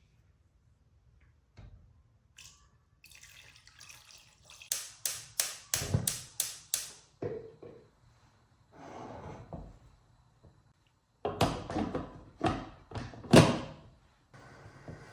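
Kitchen prep sounds: a quick run of about seven sharp knocks, a brief rustle, then a few louder knocks and clatters near the end.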